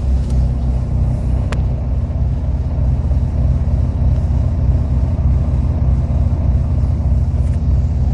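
A loud, steady low rumble with a droning hum: an idling vehicle engine.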